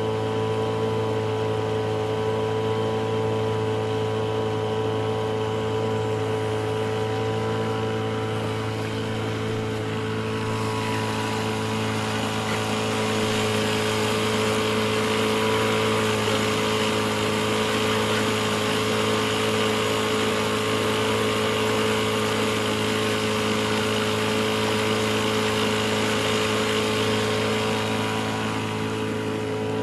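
Small outboard motor pushing a Catalina 22 sailboat along at a steady speed, with an even, unchanging hum. The rush of water along the hull grows louder about ten seconds in.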